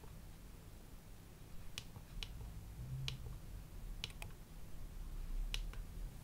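Sharp, small button clicks, about seven irregularly spaced presses, over a faint low hum: controls being pressed to change settings on the oscilloscope.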